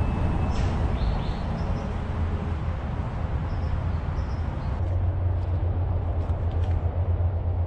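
Steady rumble of freeway traffic, with a few faint bird chirps.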